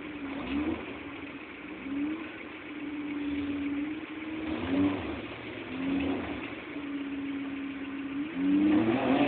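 Small car's engine revving in repeated surges, rising and falling every second or two, as the car sits stuck on a muddy slope trying to climb out.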